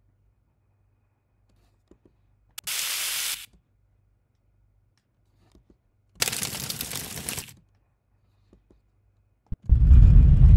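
Short sound-effect clips played and cut off: a hissing burst lasting about a second, a pause, then a crackling hiss of about a second and a half. Near the end comes a louder burst with a heavy low rumble under the hiss.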